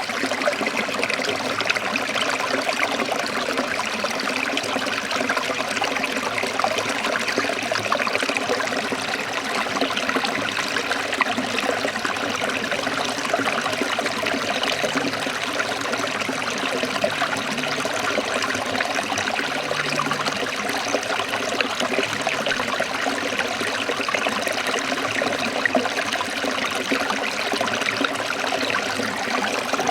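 Forest stream trickling steadily over rocks, a constant splashing burble of running water.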